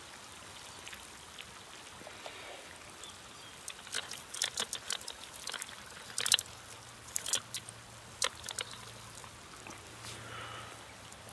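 Metal camping pot with folding wire handles clinking and clicking as it is taken hold of and lifted off the embers, the water inside sloshing. The sharp clicks come in a cluster through the middle few seconds, over a faint steady hiss.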